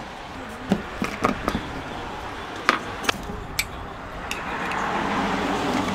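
Scattered sharp clinks and knocks, about nine in all: a metal spoon and a glass jar of green tangerine preserve knocking against each other and against a plastic cup of ice.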